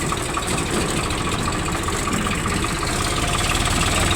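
Excavator's diesel engine running steadily at idle, with an even low pulsing, growing a little louder near the end.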